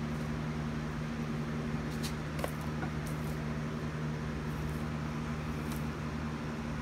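Steady low mechanical hum, like a fan or appliance running, with a few faint ticks.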